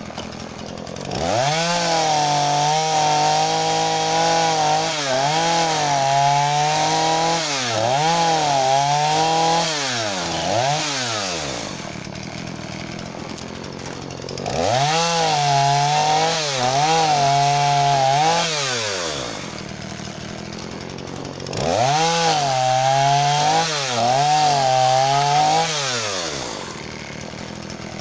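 Husqvarna 236e two-stroke chainsaw cutting firewood logs. It runs in three long bursts at full throttle, its pitch repeatedly dipping and recovering as the chain bites into the wood, and drops back to idle between the cuts.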